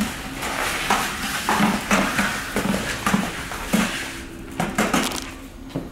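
Hand trowel spreading and packing wet epoxy river-stone mix: repeated scraping strokes, about one or two a second, that die down near the end, over a steady low hum.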